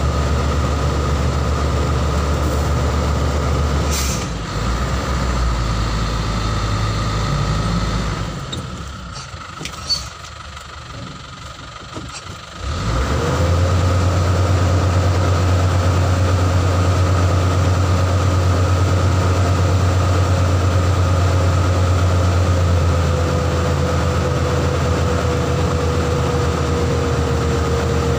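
Vehicle engine idling, heard from inside the cab. About eight seconds in it goes quiet, with a single click during the lull. About thirteen seconds in it starts again, rises briefly and settles into a steady, slightly higher idle.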